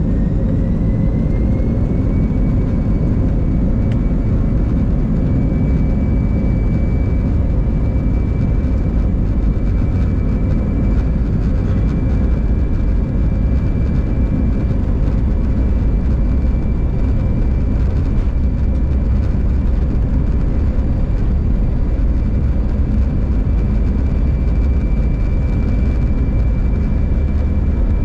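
Airbus A320 jet engines heard from inside the cabin: a whine climbs in pitch over the first two seconds and then holds steady over a continuous low rumble, the engines spooling up to a high power setting.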